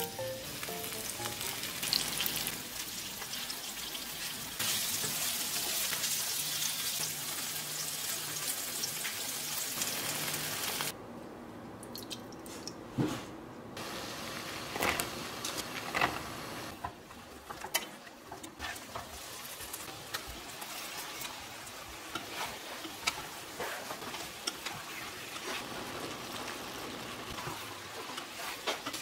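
Oil sizzling in a frying pan as cubes of tofu pan-fry. About eleven seconds in it drops to a quieter sizzle of a soy-based sauce simmering, with scattered clicks of a wooden spatula stirring.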